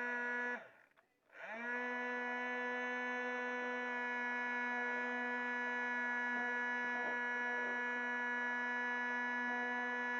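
Small DC motor of a homemade vacuum cleaner running with a steady whine. It is switched off about half a second in and its pitch drops away. Under a second later it is switched back on and spins up to full speed again.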